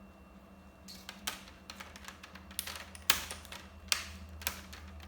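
Irregular small plastic clicks and taps from handling and fitting a replacement laptop screen panel into the lid, over a steady low hum.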